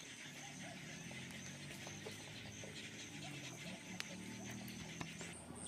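Riverside evening ambience: a steady, high insect drone under low, drawn-out animal calls, with a single sharp click about four seconds in.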